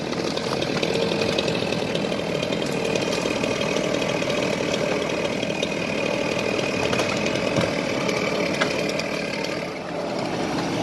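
Chainsaw engine running at a steady speed, dipping briefly near the end.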